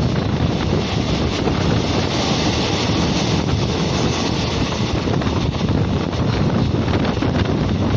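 Wind buffeting the microphone held out of a moving passenger train's window, over the steady running noise of the coach on the track.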